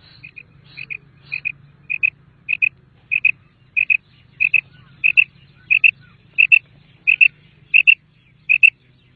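Common quail calling: a sharp two-note call repeated about fourteen times, roughly every two-thirds of a second, getting louder over the first few seconds, over a faint low hum.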